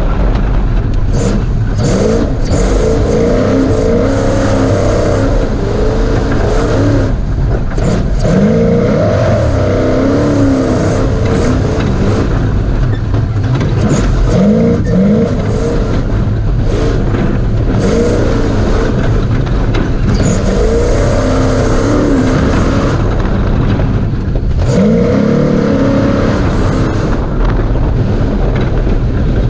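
Ford Ranger desert race truck's engine revving hard, its pitch climbing and dropping again and again as the driver accelerates, shifts and lifts, over a steady rush of noise, heard from on board.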